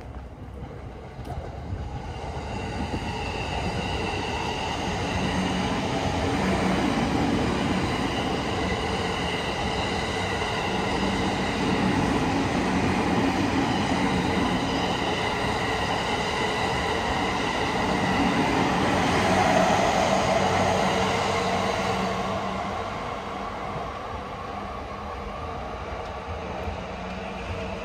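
Electric train running past on the tracks: the rumble of the wheels under a steady high whine. It grows louder over the first several seconds and fades somewhat after about twenty seconds.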